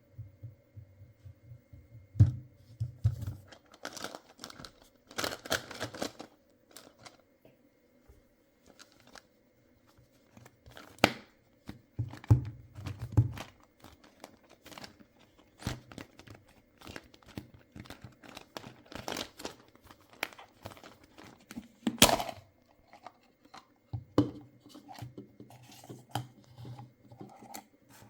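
Packaging being torn open and crinkled by hand, in irregular crackling bursts with scattered clicks and low handling knocks, and one louder sharp click about two-thirds of the way through.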